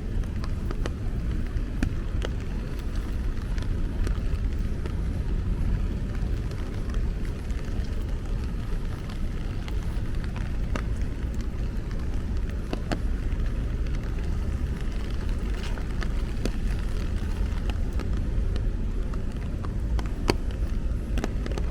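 Steady low rumble of city street traffic in the rain, with scattered faint sharp ticks.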